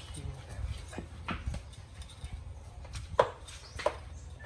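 Knife scraping the outer layer of scales off a crocodile's hide, a few short, sharp scrapes spaced out by quieter rubbing.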